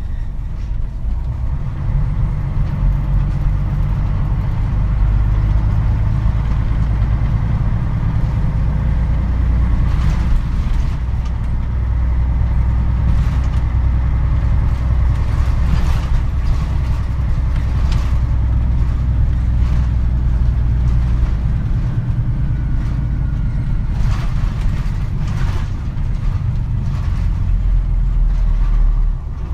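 Diesel engine of a Mitsubishi Fuso KC-MP747 city bus, heard from inside the cabin while the bus is under way: a steady low rumble with a handful of sharp clicks or rattles, and the engine note falls away just before the end.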